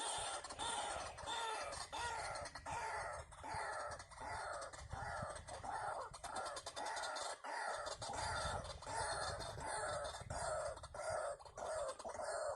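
White-breasted waterhen (ruak-ruak) calling, a monotonous run of short, harsh, evenly repeated notes at about two a second.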